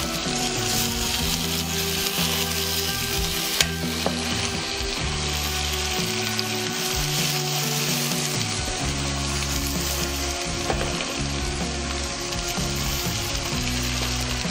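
Marinated fish pieces sizzling as they fry in hot oil with browned onions and green chillies, a metal spoon moving them in the pot. One sharp click comes about three and a half seconds in.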